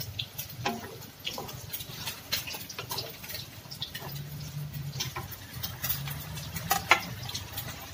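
Wooden spatula stirring and scraping a thick simmering curry in a non-stick wok, giving scattered soft clicks and taps with a sharper knock near the end.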